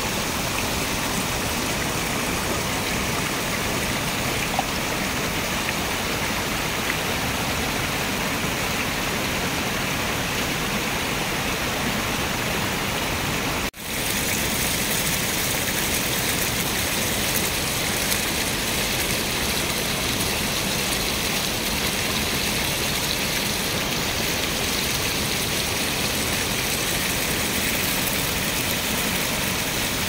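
River water spilling over a concrete weir and churning through foaming white-water rapids below: a steady rushing roar. It cuts out for a moment about halfway through.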